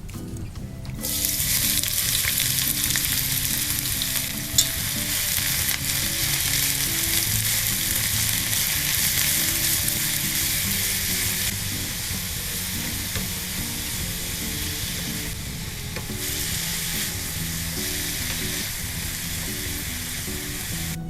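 Food sizzling in hot oil in a frying pan, starting suddenly about a second in as it hits the pan, with a sharp click a few seconds later.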